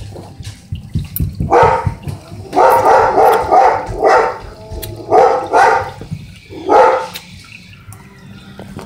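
A dog barking, loud and close, in about five bouts of quick barks with short pauses between them.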